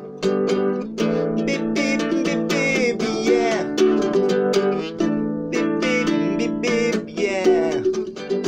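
Nylon-string classical guitar strummed in a quick, steady rhythm. A man's voice sings over it without clear words, in places.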